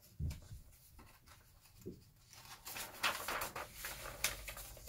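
A soft low thump near the start, then paper pages rustling and crinkling from about halfway on as a hand turns a page of a picture book.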